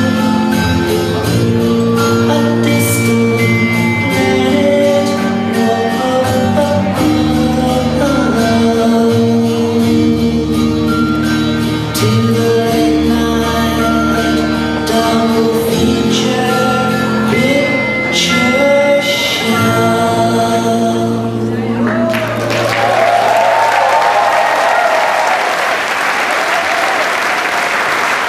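A song with singing plays for a dance routine and ends about two-thirds of the way through, and an audience breaks into loud applause that carries on to the end.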